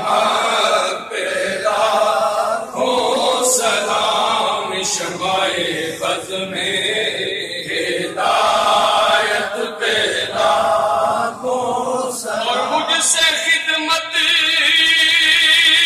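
Men's voices chanting an unaccompanied Urdu salaam to the Prophet together, in a wavering, melismatic devotional style. A long note is held near the end.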